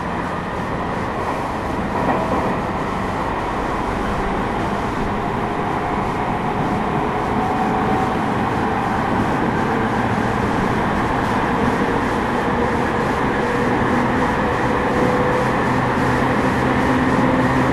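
Running sound of a JR East 209 series 500-subseries electric train heard from inside the car: a steady rumble of wheels and running gear on the rail, with the car's air conditioning running. The sound grows gradually louder, and faint tones shift in pitch.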